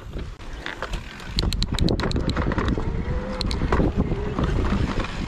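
Mountain bike rolling fast down a dirt trail: wind buffeting the handlebar-mounted camera's microphone over the rumble and rattle of the bike, with a run of sharp clicks near the start. A faint wavering whine midway comes from something stuck in the bike, which the rider notices just afterwards.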